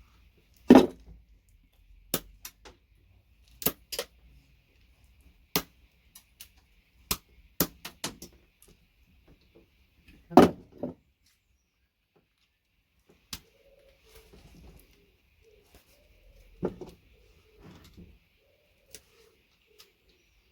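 Irregular sharp clicks, knocks and clatter from pliers, side cutters and metal-and-plastic VGA connectors being handled and broken apart on a bench. Two louder thumps come about a second in and about ten seconds in.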